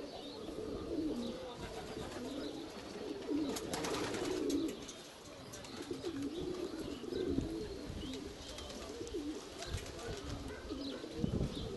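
Domestic pigeons cooing repeatedly, with a brief rustling noise about four seconds in.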